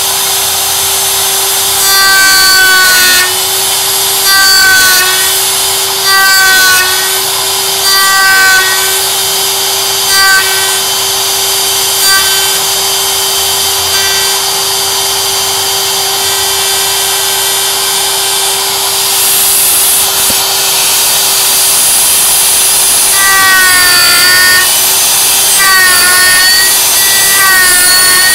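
CNC router spindle running with a steady whine while a dovetail bit cuts a mahogany drawer-box tail board. Short bursts of cutting come about every two seconds for the first ten seconds, then the cutting runs more continuously, with further bursts near the end.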